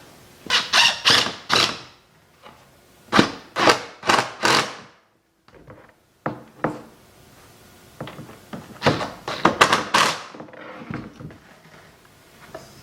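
A series of knocks and thunks on a wooden door being worked on, coming in quick clusters of three or four strikes with short pauses between.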